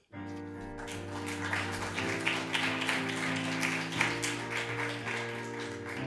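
Instrumental music starts abruptly, with held chords under a dense run of quick, sharp notes.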